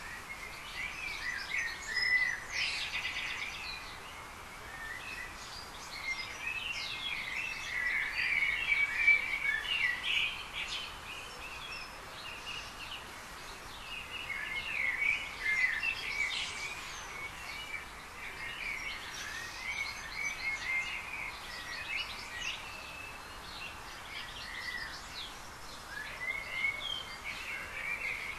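Garden birds singing and chirping, many short calls overlapping almost without pause over a steady background hiss, louder in a few bursts.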